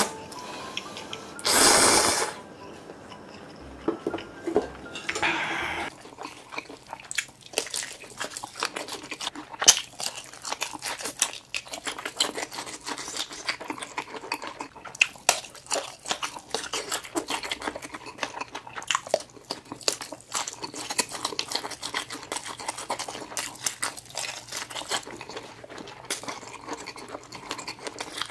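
A loud slurp of ramen noodles about two seconds in. From about six seconds, steady mouth sounds of chewing sausages: many small wet clicks and smacks.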